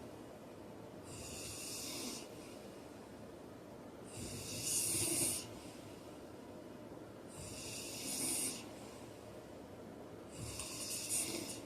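A heavy-set man snoring in his sleep: four noisy, rasping snores, each about a second long, coming regularly about three seconds apart.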